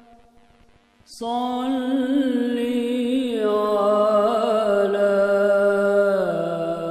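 Unaccompanied voice singing an Urdu naat. After about a second of near silence it comes in on a long held wordless note, then steps down in pitch twice, holding each note.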